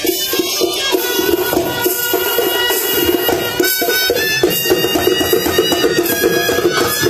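Traditional folk music: a high wind-instrument melody played over steady drumming.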